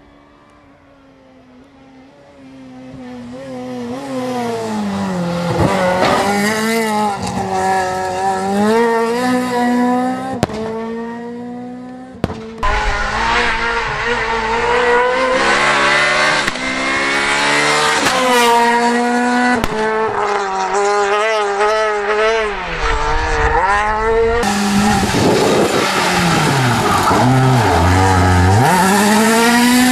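Renault Clio R3 rally car's naturally aspirated four-cylinder engine at full throttle, revving up and dropping back again and again through gear changes and lifts as the car passes. It starts faint and gets loud within the first few seconds, and jumps twice where shots are cut together.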